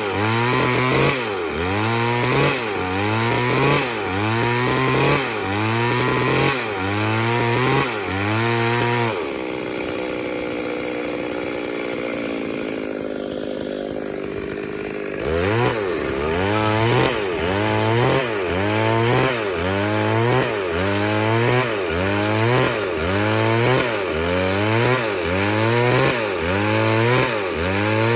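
Chainsaw working wood, its engine pitch rising and falling about every second and a half. For about six seconds in the middle it settles to a steadier, lower running, then the up-and-down cycling starts again.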